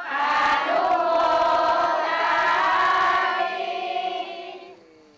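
A large crowd of voices chanting together on a long held note, which fades away over the last second or two.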